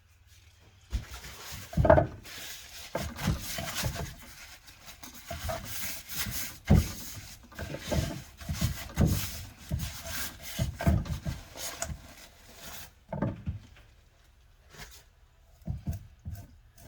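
A kitchen knife scraping and cutting along a sea bass fillet on a cutting board, with irregular rasping strokes and sharp knocks of the blade on the board, the loudest about two seconds in and again near seven seconds. The strokes stop about thirteen seconds in, and a few light taps follow.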